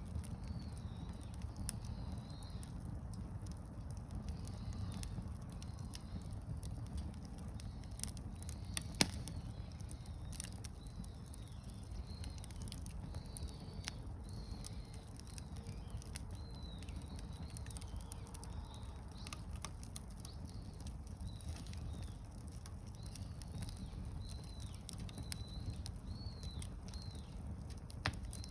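Wood campfire crackling, with scattered sharp pops (the loudest about nine seconds in) over a low steady rumble. Small birds chirp in the background with short, high, repeated calls.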